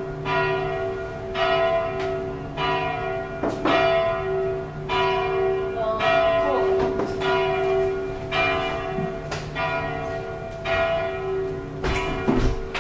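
A church bell tolling, about one stroke a second, each stroke ringing on under the next. A low thump near the end.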